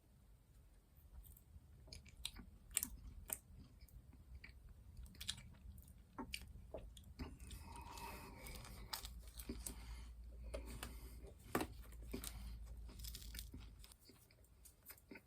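Close, faint chewing and crunching of food, with scattered small mouth clicks and bites.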